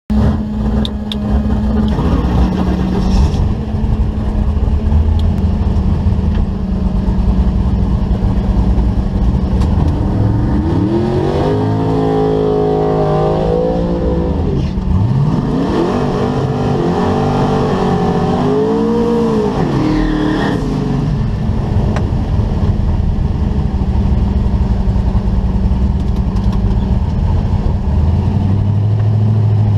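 Twin-turbo big-block Chevrolet V8 drag car idling, heard from inside the cabin. About ten seconds in and again about fifteen seconds in, an engine revs up and down for a few seconds at a time.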